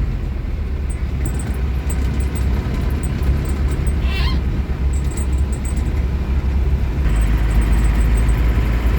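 Isuzu Panther pickup's 2.5-litre direct-injection four-cylinder diesel running steadily as the pickup is test-driven, with a louder, changed note about seven seconds in. A brief high rising chirp comes about four seconds in.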